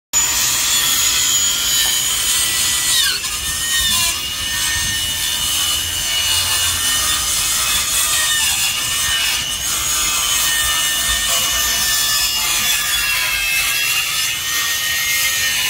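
Corded circular saw running and cutting through a sheet of OSB, a steady high whine that dips in pitch now and then as the blade takes load in the cut.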